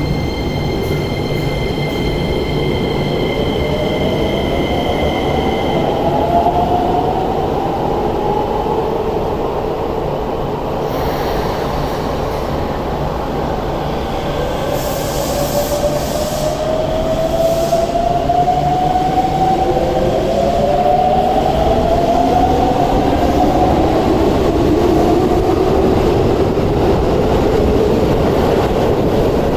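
Subway trains pulling out of an underground station. The electric traction motors give a whine that rises in pitch several times as they accelerate, most of it in the second half, over steady wheel and rail rumble. Faint steady high tones sound through the first few seconds.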